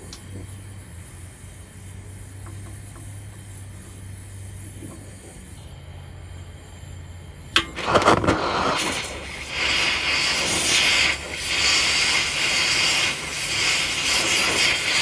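Welding torch lit with a sharp pop about seven and a half seconds in, then its flame hissing loudly and unevenly against a seized bolt.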